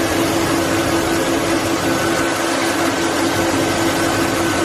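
2005 GMC Sierra engine idling steadily, its new serpentine belt and idler pulley running smoothly with an even hum and no squeak.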